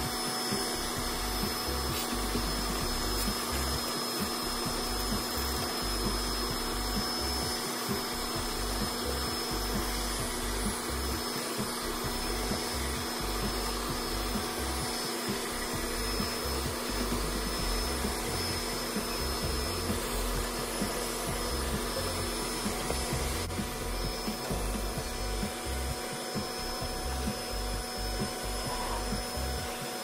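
Vacuum cleaner running steadily, its hose nozzle drawn along the fins of an air-conditioner condenser coil to suck off caked dust and debris.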